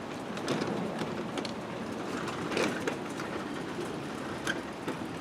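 An old wooden sectional garage door being rolled by hand along its steel tracks: a steady rumble with irregular clicks and ticks from the rollers.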